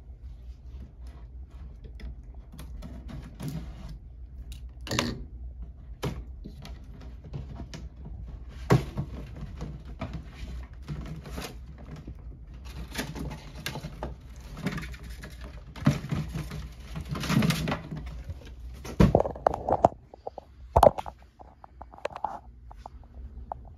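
Scattered clicks and knocks with bursts of rustling, then a few louder thumps near the end: handling noise around a glass terrarium and its lid while a live rat is put in with a boa constrictor.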